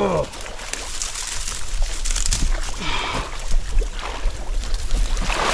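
Marsh water sloshing and dry cattail stems crackling as a person in waders reaches down into the water and mud, with many short irregular crackles.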